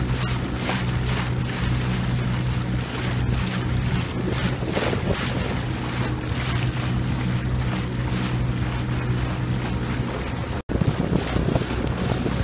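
Boat motor running with a steady hum as the boat moves across open water, with wind buffeting the microphone and water splashing. The sound cuts out for an instant near the end.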